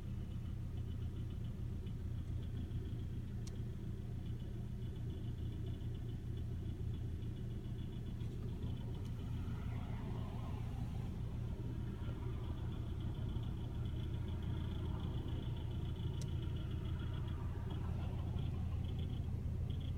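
2009 Hyundai Elantra's four-cylinder engine idling, with a fast, light clicking rattle heard from the dashboard that drops out for a few seconds midway. The owner traces the rattle to something mechanical in the engine bay, since it goes away when the hood is popped.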